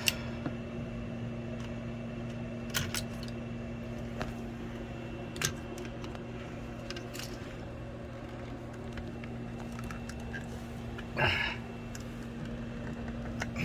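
Steady low hum with a few sharp clicks. A louder rustle or scrape comes about 11 seconds in.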